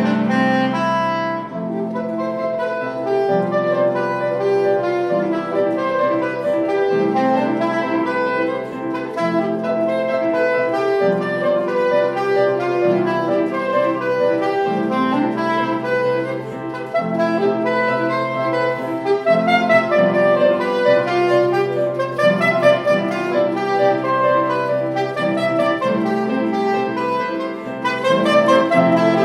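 Soprano saxophone and grand piano playing a duet: the saxophone carries the melody over piano chords that change about every two seconds.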